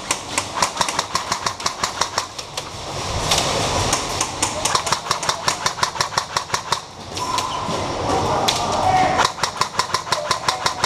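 Airsoft guns firing in rapid, evenly spaced bursts of about a dozen shots a second. There are several long strings of shots, with a break about seven seconds in before the firing picks up again.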